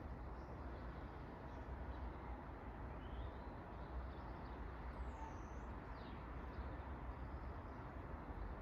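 Outdoor ambience: a steady low rumble with a few faint, scattered bird chirps and whistles over it.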